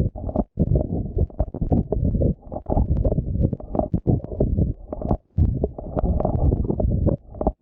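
Muffled water sloshing and gurgling close on the microphone as a swimmer strokes through the water, broken by short dropouts.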